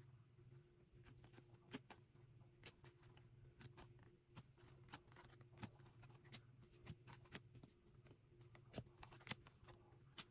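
Faint, irregular clicks and ticks of glossy photocards being flicked through by hand and set down onto piles, over a low steady hum.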